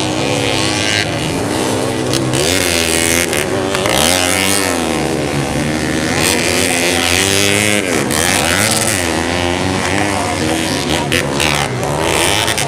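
Modified 130 cc underbone motorcycle engines racing on a dirt track. The revs rise and fall again and again, every second or two, as the riders open and close the throttle.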